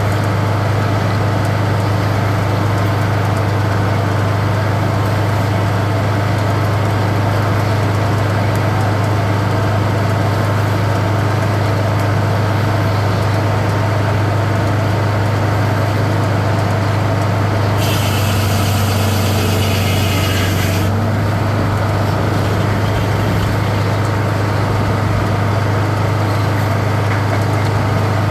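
Sawmill engine running at a steady drone while a crosstie is sawn. A sharp hiss joins it for about three seconds about two-thirds of the way through.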